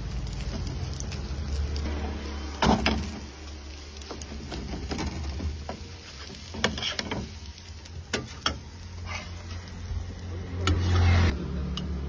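Steel spatula scraping and knocking against a steel frying pan as an omelette is cut and turned: a scattering of sharp clinks and scrapes, with a longer clatter near the end, over a steady low hum.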